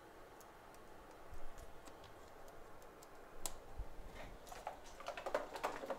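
Scattered small clicks and light knocks from an iPhone being handled on a bench mat as the opened phone is pressed closed and set down. A low knock comes about a second in and a sharp click midway, then a flurry of quick clicks and rustling in the last two seconds.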